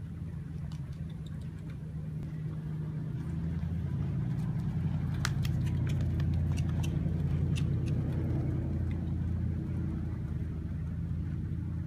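A steady low motor hum, like an engine running, that grows louder toward the middle and eases slightly near the end, with a few sharp clicks scattered through the middle.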